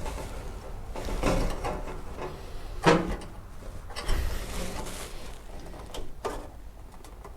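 Sheet-metal body panel being shifted and clamped into place: a series of metal knocks and scrapes, the loudest a sharp clunk about three seconds in.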